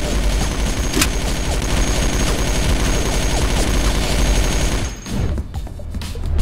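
Rapid automatic gunfire, continuous for about five seconds, then breaking up into separate shots, over background music.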